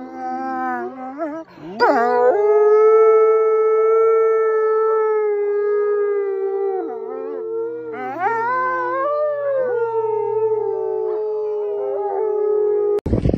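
A wolf howling in long, steady held notes, with a sharp upward swoop into the note about two seconds in and another rise around eight seconds. The howl cuts off abruptly just before the end.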